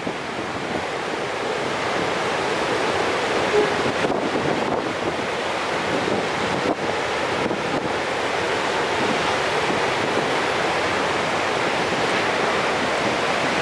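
Steady rushing of a large waterfall, the High Falls of the Genesee River, with some wind on the microphone.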